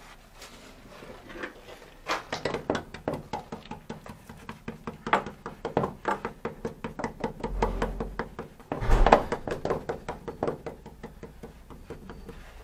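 Irregular knocking and clattering of hand work in a small room, with a heavier thud about nine seconds in.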